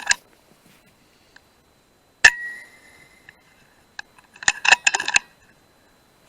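A single sharp shot from a .177 PCP air rifle about two seconds in, with a short metallic ring after it. A quick run of metallic clicks and clinks follows about two seconds later.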